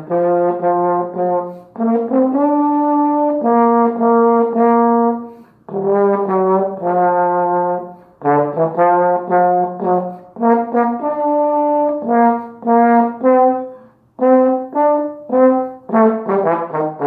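King Tempo trombone played solo, a march melody of held and short detached notes in phrases separated by brief pauses.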